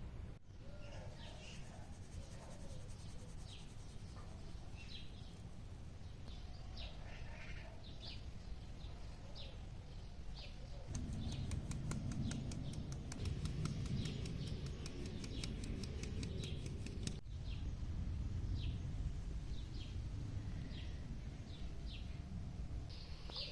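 Small birds chirping again and again with short, quick calls. In the middle, for about six seconds, a fast run of clicks, several a second, sounds over a louder rustling noise, then stops abruptly.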